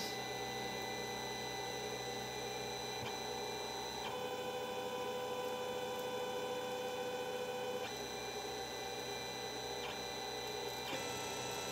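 Stepper motors of a Creality CR-10S 3D printer converted into a bioprinter, whining steadily as they drive the syringe print head through a print. The pitch changes to a new steady tone about four seconds in, again near eight seconds, and once more near the end, as the moves change.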